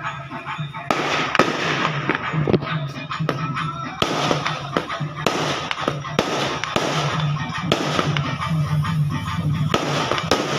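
Aerial fireworks shells bursting in a dense run of sharp bangs and crackles, with music playing underneath.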